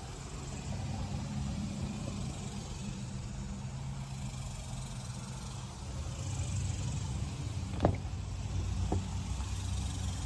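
Chevrolet Silverado ZR2's 6.2-litre V8 idling steadily, a low hum, with two sharp clicks about a second apart near the end.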